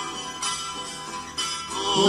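Acoustic guitars playing a short instrumental passage of a song, with sharper plucked notes about half a second and a second and a half in.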